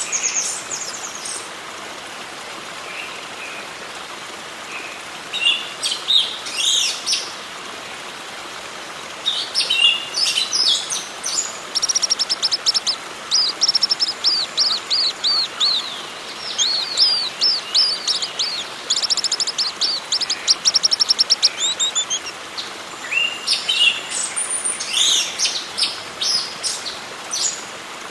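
Wild birds singing and calling in several bursts of high, rapidly repeated chirps, over a steady background hiss.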